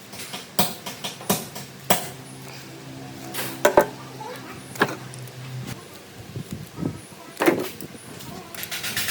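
Workshop handling sounds: a series of sharp knocks and clicks, with a low steady hum from about a second in until nearly six seconds, and a brief hiss near the end.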